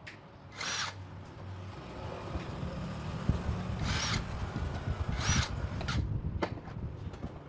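Three short bursts of hiss with a faint whistle in them, one about a second in and two more near four and five seconds in, over a low rattling rumble that grows louder partway through.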